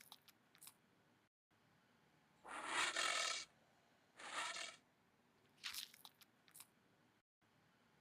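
Anteater sound: raspy, breathy huffs about a second long alternating with short clicking ticks, repeating as a loop about every three seconds.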